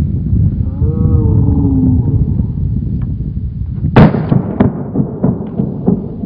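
Wind buffeting the microphone, then about four seconds in a sharp bang as a capped plastic water bottle bursts under the gas pressure of a vinegar and baking soda reaction, followed by a few smaller knocks.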